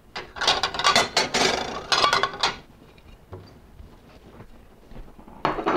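Dishes and serving utensils clinking and scraping: a busy clatter for a couple of seconds, a pause, then a shorter clatter near the end.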